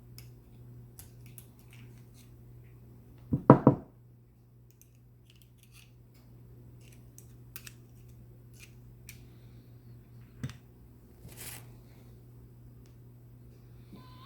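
Sharp little clicks and clatters from small parts being handled at a workbench: a quick run of three or four sharp clicks about three and a half seconds in, then faint scattered ticks, over a steady low hum.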